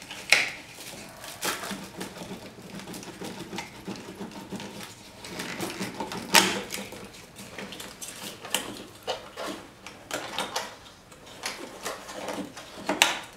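Irregular plastic clicks and rattles as wiring-harness connectors are wiggled and pulled out of an engine computer (PCM), with one sharper click about six seconds in.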